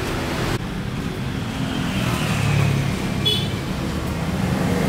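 A motorcycle engine idling with a steady low hum, growing a little louder near the end.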